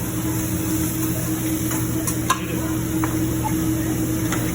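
Hot cooking griddle sizzling steadily over a constant hum, with a few sharp metal clicks, the loudest about halfway through.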